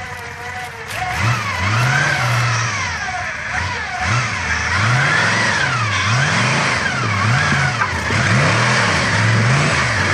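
Early Ford Bronco's engine revving up and down over and over as it crawls over rocks on a steep trail, the revs rising and falling about once a second from about a second in.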